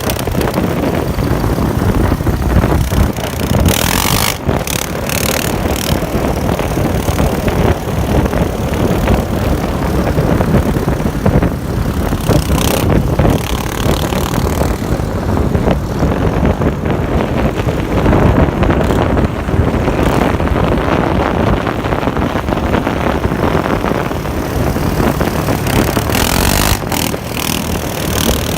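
ATV engines running on a ride, a loud steady mix of engine and road noise with brief hissing flares a few times.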